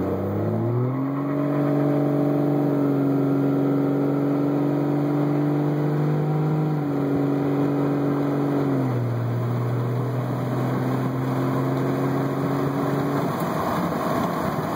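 Cummins 5.9 L inline-six turbo-diesel of a Dodge Ram, tuned with an Edge Juice module, pulling hard under full-throttle acceleration, heard from inside the cab. The engine note climbs, then holds, and drops in pitch at upshifts about seven and nine seconds in. Toward the end it gives way to road and wind noise.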